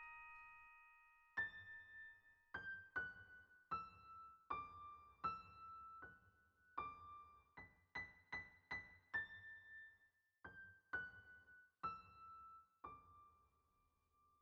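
Quiet background piano music: a slow melody of single notes, each ringing and fading.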